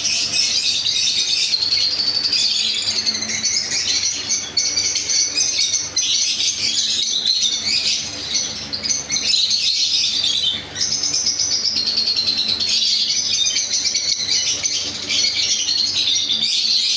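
A flock of small caged birds chirping and chattering continuously in dense, high-pitched calls.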